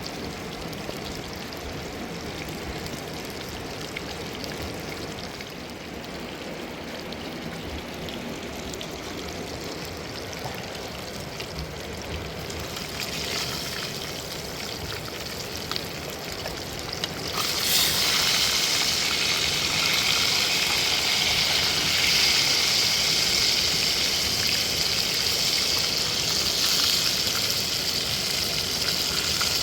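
Steady rush of running river water. About two-thirds of the way through, a much louder high sizzling hiss starts suddenly and holds: food frying in hot oil.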